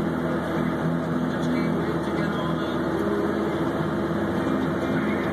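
Snowcat grooming a ski run: its diesel engine runs steadily under load, a constant low drone with a few steady hum tones.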